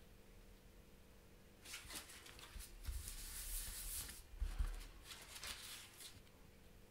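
Faint rustling of card and paper being handled as a pop-up card is folded shut and pressed flat by hand on a cutting mat, starting about a second and a half in. Two dull thumps come from the hands pressing down.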